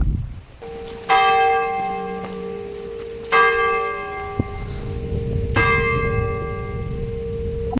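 Church bell, most likely the nearby chapel's, tolling three strokes about two seconds apart, each stroke ringing on under the next.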